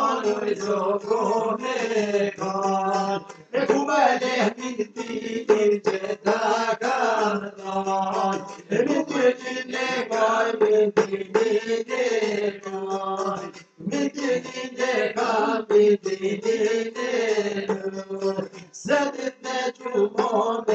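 Men singing a folk song to a çifteli, the two-stringed Albanian long-necked lute, strummed in quick, even strokes. The singing breaks off briefly twice.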